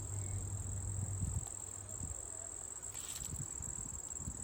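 Crickets trilling steadily at a high pitch, with wind rumbling on the microphone for about the first second and a half.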